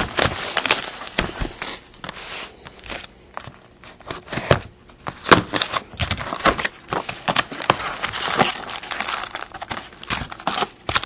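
Plastic shrink-wrap crinkling and tearing as it is peeled off a sealed trading-card box, with irregular rustles and crackles throughout; then the cardboard box and its card packs being handled.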